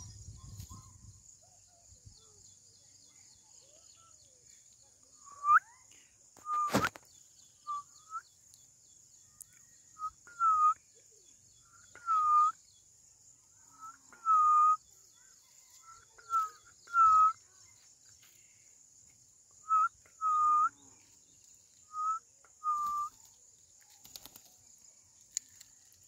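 Rose-ringed parakeet giving short whistled calls, a dozen or more clear notes that each rise slightly and then hold, coming singly and in pairs every second or two from a few seconds in. One sharp click falls among the early calls.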